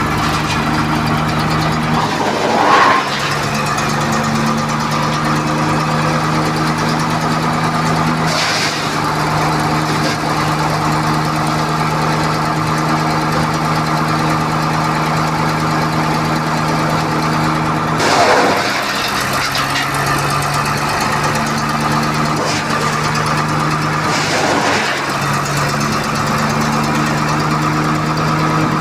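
A small engine driving a wood mill runs steadily at high speed. Four times its steady note breaks into a short rush of noise and then settles back.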